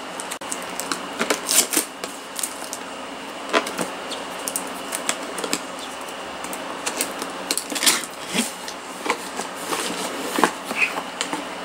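Cardboard box being opened and its packaging handled: irregular clicks, taps and short rustles throughout.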